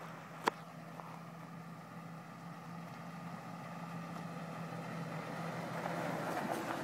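Ford F-150 pickup engine running as the truck drives slowly over a dirt track toward the microphone, the sound of engine and tyres growing louder as it draws up close. A single sharp click about half a second in.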